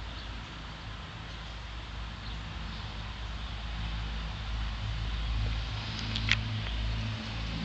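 An engine running steadily at low speed, a little louder midway, with one short, sharp high squeak about six seconds in.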